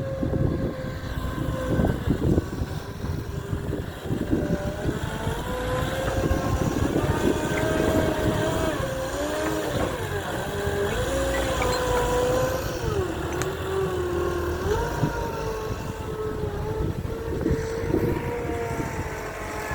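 Gehl V420 compact skid steer loader working, its engine note rising and dipping repeatedly as the machine is loaded, with scattered knocks and clanks.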